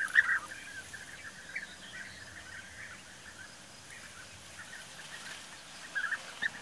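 A group of European bee-eaters calling: a dense flurry of short calls at the start thins to scattered calls, then a quick cluster again near the end.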